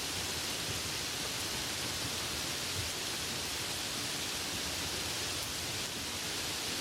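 Light rain falling steadily, a continuous even hiss with no distinct drops standing out.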